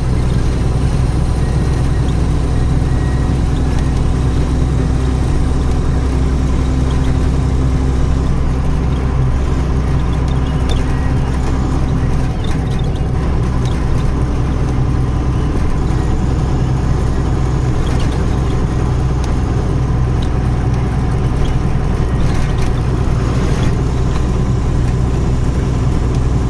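Tata 3118 truck's diesel engine running steadily at cruising speed, heard from inside the cab, with the even rush of tyres and road.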